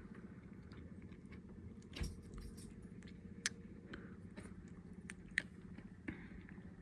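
Faint, scattered clicks and light rattles of small laptop parts being handled during disassembly, with the sharpest clicks about two, three and a half and five and a half seconds in, over a low steady hum.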